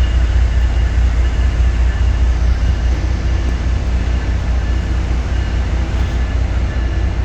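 Amtrak Northeast Regional train approaching: a steady low rumble with faint, thin high-pitched tones above it.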